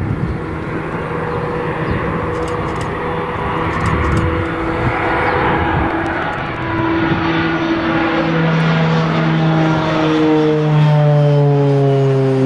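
Beechcraft Super King Air's twin PT6A turboprops at takeoff power through the takeoff roll, liftoff and climb-out: a steady propeller drone that grows louder, its pitch falling slightly near the end as the aircraft passes close by.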